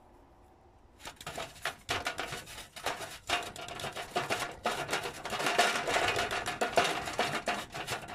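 Raw Six Shooter plastic cone filler rattling and clicking rapidly as it is handled while being loaded with ground cannabis, starting about a second in.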